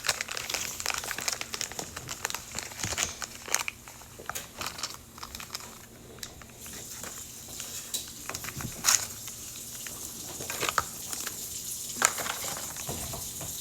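Crinkling and rustling of small plastic wrappers as Mini Brands items are unwrapped and handled, with scattered sharp clicks and taps.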